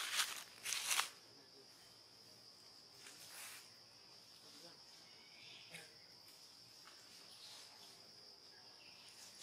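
Insects droning steadily on one high pitch, with a few short rustling noises in the first second and fainter ones about three and six seconds in.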